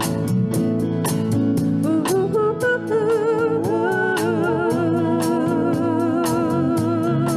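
Live band playing the outro of a soft rock song on guitars, bass and drum kit, with steady drum and cymbal strikes. About two seconds in, voices come in holding long sung notes with vibrato over the band.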